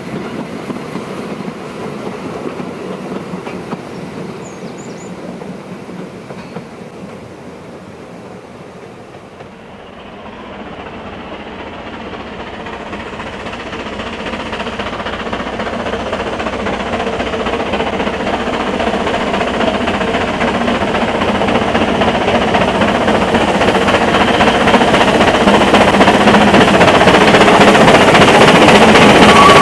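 Narrow-gauge steam train running on rails, with wheel clatter. The sound fades for the first ten seconds or so, then a train approaches and grows steadily louder toward the end.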